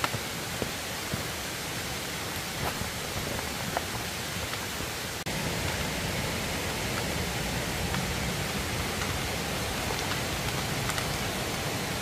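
Steady rush of a mountain stream running over rocks. About five seconds in it steps up suddenly, a little louder and fuller.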